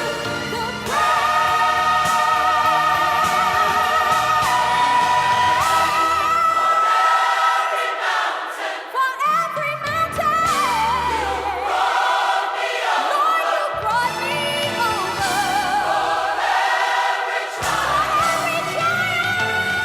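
Choir singing with instrumental backing in a gospel style, holding long notes with vibrato. The bass accompaniment drops out briefly three times.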